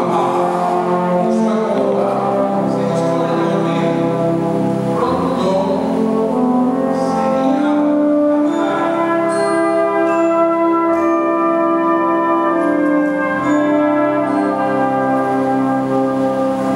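Brass ensemble of trumpets, trombones, horns, euphonium and tuba playing slow, sustained chords that change every second or two, in a reverberant church.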